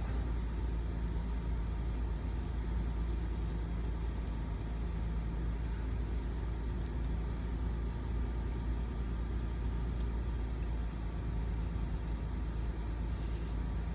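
2018 BMW X5 engine idling steadily while it runs its electronic engine oil level measurement after fresh oil.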